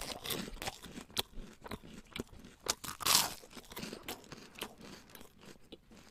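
Crunching and chewing sounds close to the microphone: irregular crackles and clicks, with two louder crunches, one at the start and one about three seconds in.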